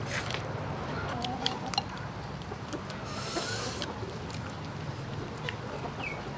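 Close-up eating sounds of grilled quail being chewed and picked at by hand: a scatter of small wet clicks and smacks over a steady low hum, with a short hiss about halfway through.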